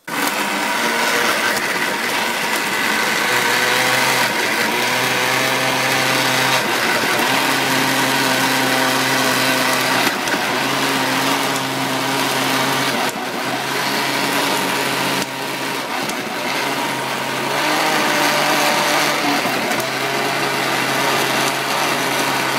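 Countertop electric blender switching on and running continuously, puréeing chopped vegetables with water. Its motor hum shifts pitch a few times as the load changes.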